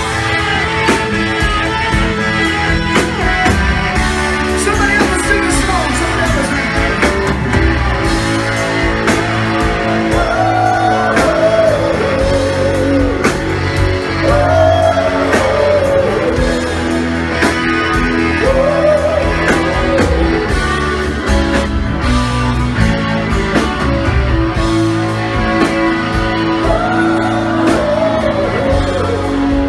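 Live rock band playing: electric guitars, bass and drums with a sung melody, heard as a loud room recording in a bar.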